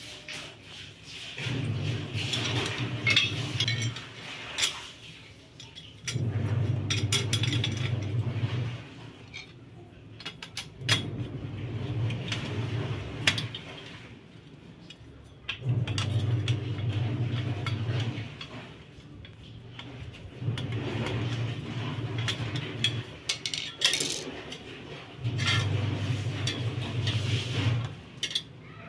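Clinks and taps of the metal tubes and brackets of a satellite dish mount being handled and fitted together, with a few sharper knocks. A low machine hum comes and goes in stretches of about two seconds, about every four to five seconds.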